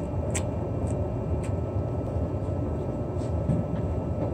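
Mazda Miata's four-cylinder engine idling through a Hooked Aerochamber muffler, a steady low exhaust rumble with a few light ticks.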